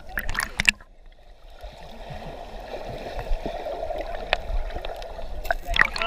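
Sound heard through a camera held underwater in a waterfall pool: splashing in the first second, then a muffled, steady underwater churning with small bubble clicks, and splashing again near the end as the camera breaks the surface.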